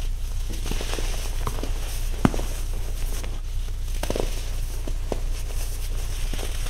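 Hands crushing and crumbling clumps of coloured baking soda powder: soft crunches and grainy rustling, with a sharper crunch a little over two seconds in and a cluster of crunches around four seconds.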